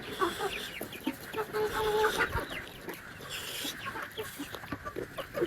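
Chickens clucking in a run of short calls, with a couple of longer drawn-out notes about two seconds in.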